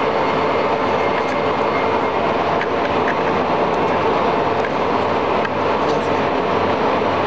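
A Monarch 36NN heavy-duty engine lathe running steadily under power: its 25 HP main motor and headstock gearing make an even mechanical whir. It runs quietly for a machine of its size.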